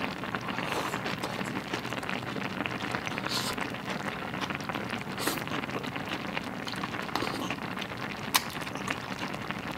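Spicy tteokbokki soup simmering in a steel pot on a burner turned low, a steady bubbling crackle. A few brief sharper sounds come through it as she eats noodles from the pot.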